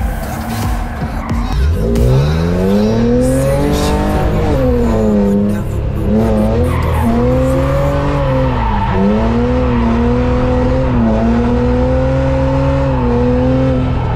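A drift car's engine revving hard through a slide. The revs climb about two seconds in and are then held high, dipping twice, with tyres squealing.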